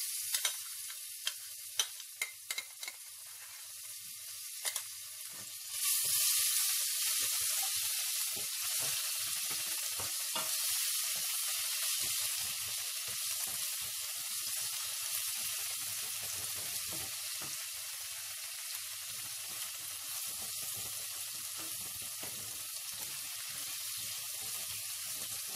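Grated garlic sizzling in hot oil in a stainless steel pot while it is stirred with a wooden spoon, with a few sharp knocks and scrapes in the first seconds. The sizzle gets louder about six seconds in and then runs steadily as the garlic is lightly browned.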